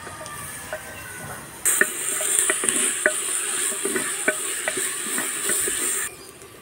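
Sliced onions frying in hot oil in a clay pot, sizzling loudly, while a utensil stirs them with repeated scraping clicks against the pot. The sizzle starts suddenly a little under two seconds in and drops away sharply just before the end.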